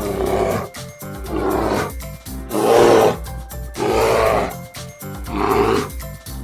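A bear growling and roaring in about five rough calls, each under a second long and about a second apart, over background music.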